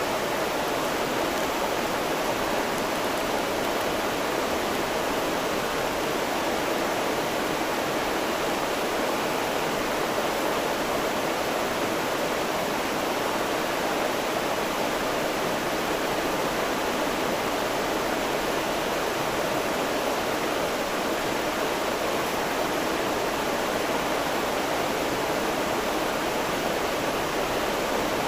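River flowing: a steady, unbroken rush of water.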